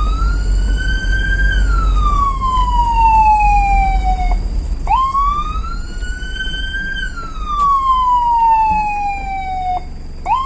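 Vehicle siren wailing in slow cycles: each one jumps up, climbs for about two seconds, then glides down for about three seconds and cuts off, repeating about every five seconds over a low rumble.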